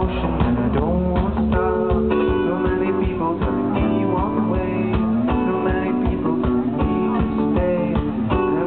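Live indie band playing: electric guitar and bass guitar over keyboard and a steady drum beat.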